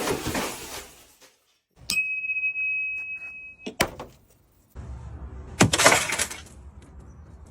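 Glass breaking several times in separate cuts. A shattering crash comes at the start. About two seconds in there is a sharp hit followed by a high steady ring lasting under two seconds, then another sharp hit. The loudest shattering crash comes about six seconds in, over a low rumble.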